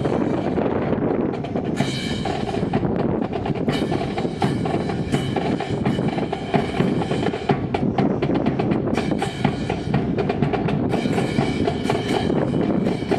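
Marching percussion section, snare and bass drums, playing a steady drum cadence.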